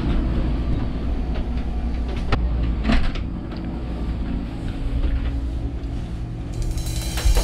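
A boat cabin's head compartment door being opened, with two sharp latch clicks about two and three seconds in, over a steady low hum. Music comes in near the end.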